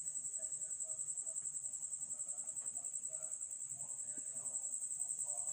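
High-pitched insect trill, pulsing rapidly and steadily without a break.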